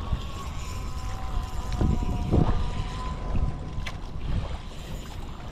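Wind buffeting the microphone in low rumbles, strongest about two seconds in, with a faint steady whine underneath.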